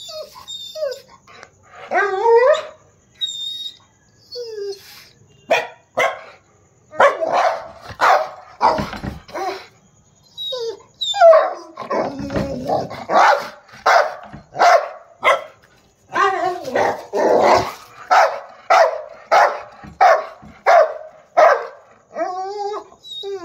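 Rottweiler barking aggressively in repeated runs of barks, up to about two a second at its busiest.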